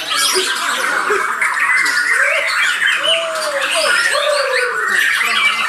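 Many caged white-rumped shamas of the Bornean race (murai batu Borneo) singing at once: a dense, unbroken jumble of quick chirps, squawky notes and whistled phrases. Through the middle come a few lower, slurred, falling whistles.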